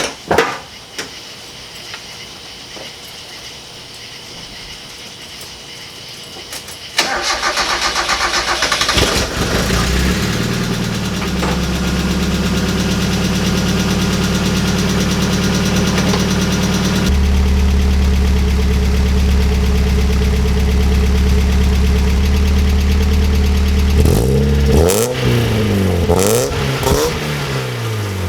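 Mazda Miata NA6 1.6-litre four-cylinder with a Yonaka aftermarket exhaust catching and starting about seven seconds in on its first start after sitting a long while. It settles into a steady idle, then is revved several times near the end.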